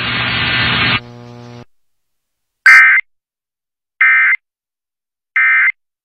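Emergency Alert System end-of-message data bursts: three short, harsh, buzzing chirps of the digital tones, evenly spaced about 1.3 seconds apart, that close the alert test. Before them there is a steady hiss, then a fainter hum that cuts off about a second and a half in.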